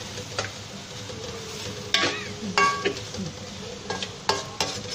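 Minced beef and ground spices sizzling in hot oil in a cooking pot while a spoon stirs, knocking and scraping against the pot several times.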